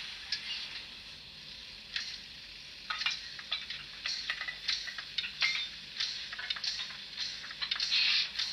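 Sound decoder of a Fleischmann N-gauge BR 044 steam locomotive playing steam effects through its tiny speaker: thin hiss with quick sharp clicks that come several a second from about three seconds in, and a louder burst of hiss near the end.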